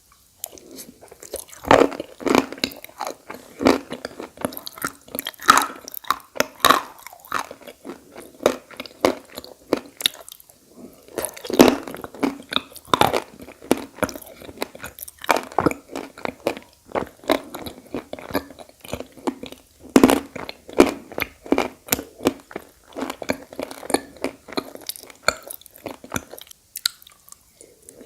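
Edible clay being bitten and chewed close to the microphone: many sharp crunches in quick clusters, with short pauses about ten seconds in and near the end.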